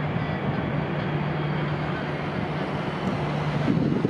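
Jet engine noise from an Airbus A350-900's Rolls-Royce Trent XWB turbofans after takeoff: a steady rumble with a low hum, with gusts of wind on the microphone near the end.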